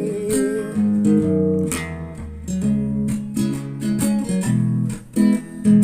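Guitar strumming chords in an instrumental break of a song, with the end of a held sung note fading out at the start.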